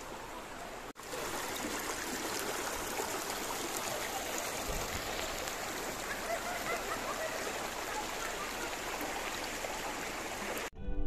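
Shallow rocky stream rushing and gurgling steadily over stones, with a brief break about a second in and cutting off shortly before the end.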